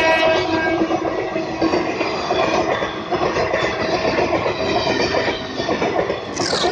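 A train passing close by, its wheels clattering over the rail joints with faint squealing tones; the horn's chord breaks off right at the start. Near the end a brief high squeal slides down in pitch.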